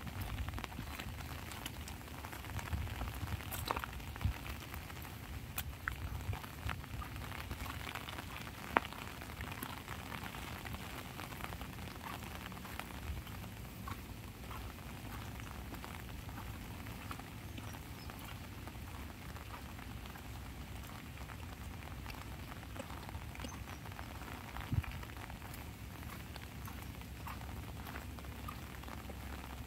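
Light rain falling on an umbrella: a steady hiss of drops with many small ticks and a low rumble underneath. A louder single tick comes about nine seconds in and another near twenty-five seconds.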